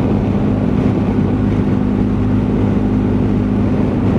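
BMW R1250 GS motorcycle's flat-twin boxer engine running at a steady cruising speed, an even drone with road and wind noise under it.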